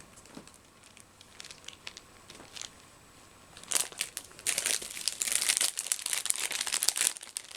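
Plastic bag crinkling and rustling as it is handled. It starts with a few faint ticks, then turns into loud, continuous crackling about halfway through.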